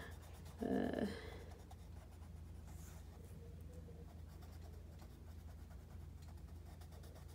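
Colored pencil scratching on paper in rapid, even shading strokes. A brief murmur of voice comes about a second in.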